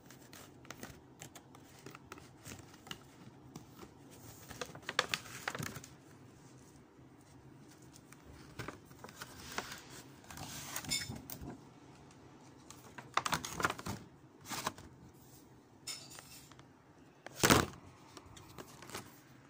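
Clear plastic packaging tray and cardboard box being handled: scattered clicks, taps and short crinkling rustles of plastic, with one loud bump near the end.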